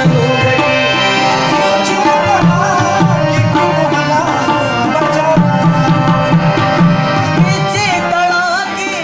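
Pashto ghazal music: tabla playing a steady rhythm under a bending melodic line, the music starting to fade out near the end.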